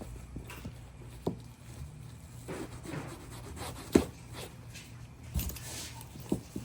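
Leather handbag being buffed and handled: soft cloth rubbing with a few short knocks and bumps, the loudest about four seconds in.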